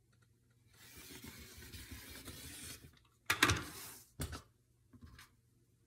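Quilting fabric and a clear acrylic ruler being handled on a cutting mat. There is a steady sliding rustle for about two seconds, then a louder, brief rustle and, a moment later, a short sharp knock.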